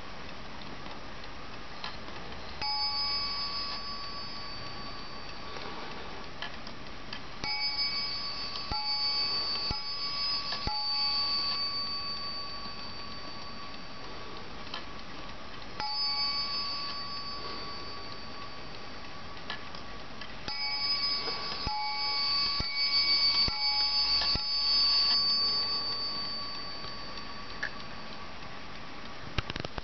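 Small Swiss 8-day Boulle-style clock ticking steadily while its hands are turned forward, setting off its strike: one ringing strike, then three, then one, then four, each tone ringing on for a second or more.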